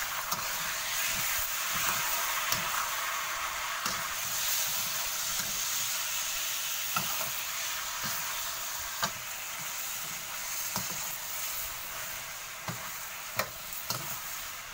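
Pork belly cubes sizzling in a wok with soy sauce, stir-fried with a metal wok spatula that scrapes and clicks against the pan now and then.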